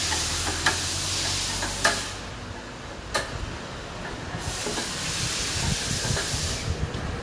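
Two long bursts of air hissing, the first about three seconds, the second starting about four seconds in, with a few sharp clicks between them.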